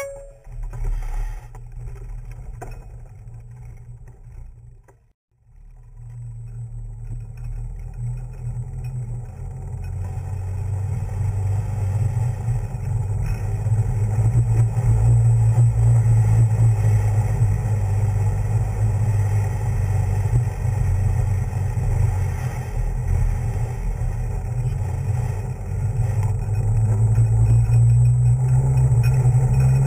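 Wind rumbling on the microphone of a bike-mounted camera while riding. The rumble grows louder as the bike picks up speed and stays loud, after a brief drop-out about five seconds in.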